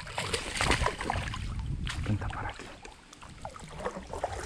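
Water splashing and small irregular knocks around a plastic fishing kayak as a hooked piraputanga thrashes at the surface beside it.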